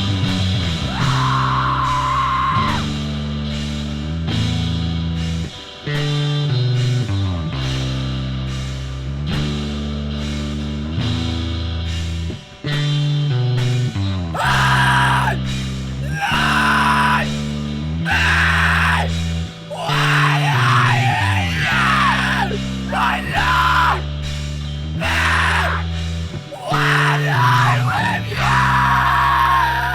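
Loud rock music: distorted guitars, bass and drums, with yelled vocals that come and go in the second half.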